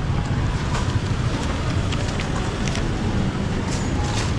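Steady low rumble of street noise, with wind on the microphone and a few light clicks and knocks.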